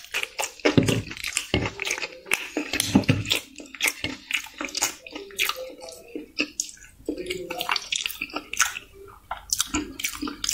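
Close-up wet chewing and lip-smacking of raw green chilli and tomato slices: a dense run of quick clicks and smacks, several a second.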